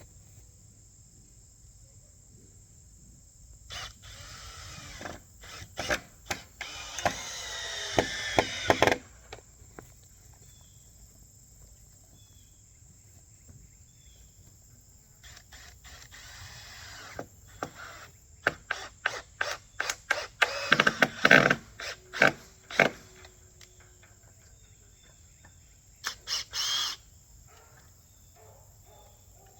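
Power drill driving screws into a wooden fence board, in several bursts of motor whine and clatter: a long one about four to nine seconds in, a cluster around twenty seconds in and a short one near the end. Crickets chirp steadily throughout.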